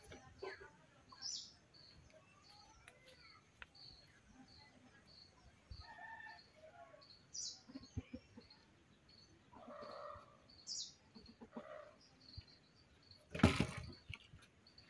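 A small bird chirping faintly and repeatedly, about two short high calls a second, with a few higher gliding calls between. Near the end comes one loud wooden clatter of firewood logs dropped on the ground.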